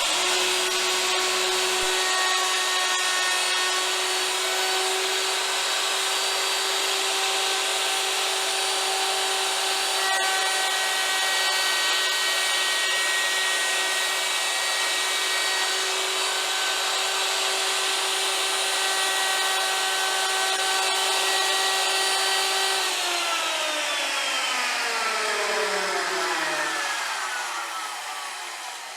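Electric router running at full speed on a first pass cutting a slot in a wooden chair, a steady high whine. About 23 seconds in it is switched off and winds down with a falling whine.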